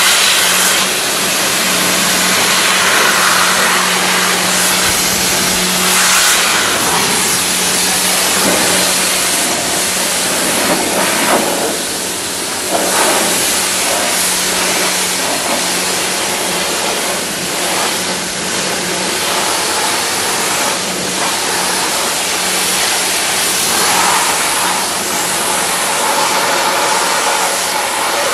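Pressure washer spraying mud off a car's bodywork: the high-pressure water jet makes a loud, continuous hiss that changes as it sweeps from the bumper to the rear window, over the steady low hum of the machine's motor and pump.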